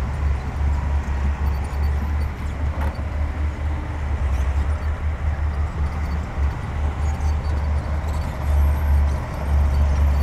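Diesel engine of heavy earthmoving machinery running, a steady deep drone with a single brief knock about three seconds in.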